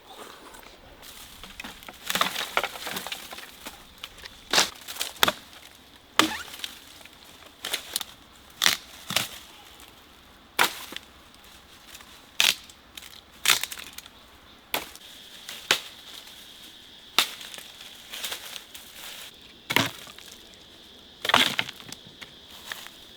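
A series of sharp, irregular knocks and snaps, roughly one every second or two, some in quick pairs. Behind them is a faint, steady high-pitched tone.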